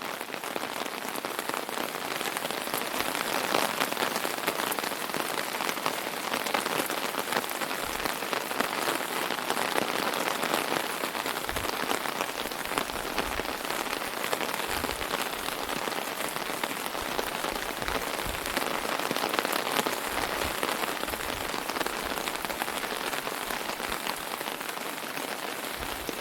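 Steady rain pattering on an umbrella canopy overhead: a dense, even patter of countless drops, with now and then a heavier low thud.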